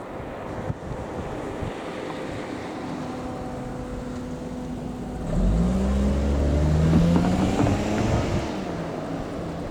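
JR East Kiya E193 'East i-D' diesel inspection train passing, its diesel engines rising to a loud steady drone about five seconds in, the pitch bending as it goes by, then easing off near the end. Wind rumbles on the microphone throughout.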